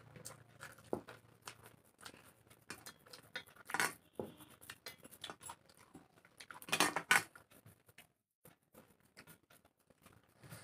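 Close-miked eating with the hands from stainless steel plates: chewing and mouth noises mixed with fingers working rice and curry against the plates, a run of small clicks and crackles with louder bursts about four and seven seconds in.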